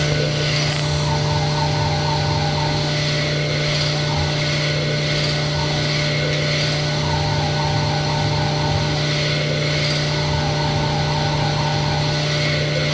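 Sunnen SV-10 honing machine running with diamond stones in an engine cylinder bore: a steady motor hum under a scraping sound that comes and goes as the hone strokes up and down the bore.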